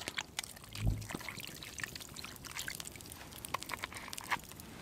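Homemade stock being poured from a bottle into a cast-iron Dutch oven: a trickling pour with many small irregular splashes as it lands on meat and potatoes, and a soft low thump about a second in.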